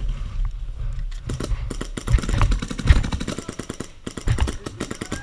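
Fast, irregular clattering clicks with dull thumps, from a magfed paintball marker and its scope camera jostling while the player moves on foot.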